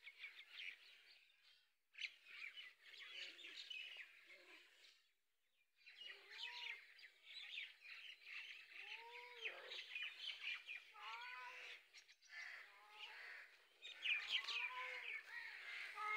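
Many small birds chirping and twittering in a dense, faint chorus, broken by two short near-silent gaps. From about six seconds in, short rising-and-falling calls join the chirping, coming more often near the end.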